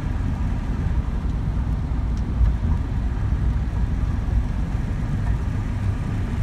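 Steady low rumble of road and engine noise from a car cruising at highway speed, heard from inside the cabin.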